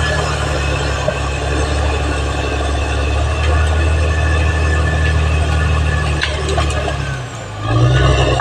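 Caterpillar D6R XL bulldozer's diesel engine running steadily under load, with its steel tracks and drivetrain whining and clanking. About seven seconds in, the engine eases briefly, then picks up again louder.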